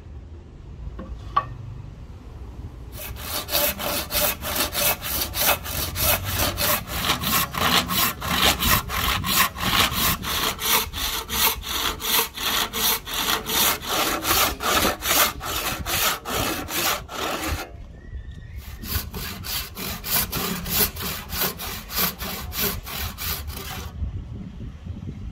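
Hand saw cutting a Siamese rosewood axe-handle blank held in a vise: steady back-and-forth strokes, about three a second. The sawing starts a few seconds in, stops briefly past the middle, then resumes.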